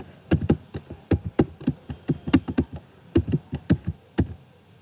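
Computer keyboard being typed on: a quick, irregular run of sharp key clicks that stops about four seconds in.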